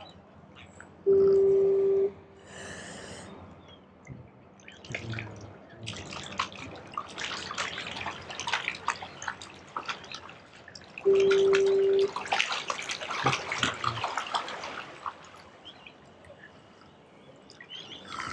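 Two electronic beeps, one steady tone of about a second each, roughly ten seconds apart and the loudest sounds. Between them come the clicking and rattling of a spinning reel being cranked, with water dripping and splashing.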